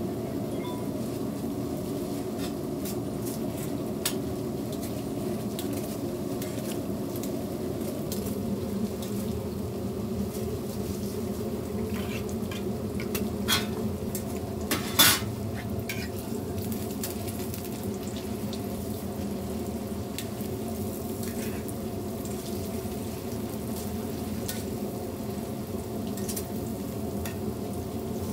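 Hotteok (Korean filled pancakes) sizzling in shallow oil on a flat griddle, with a spatula and metal tongs clicking and scraping against the griddle as they are pressed and turned; the loudest clack comes about halfway through, over a steady low hum.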